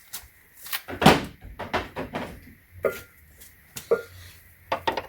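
Metal hand tools being handled: a string of separate knocks and clicks as a triple square bit socket and its driver are picked up and fitted, with a couple of short metallic rings.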